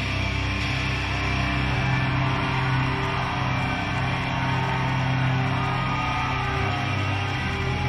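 Live rock band playing loudly: electric guitars and bass hold sustained low chords that change about two seconds in and again near seven seconds.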